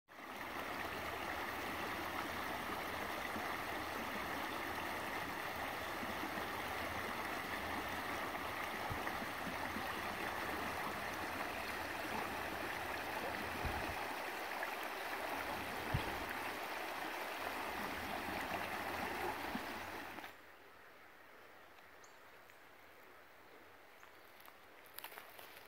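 Shallow creek rippling over stones, a steady rush of water with a couple of low bumps past the middle. About twenty seconds in it cuts off abruptly to a much fainter background, with a few light clicks at the end.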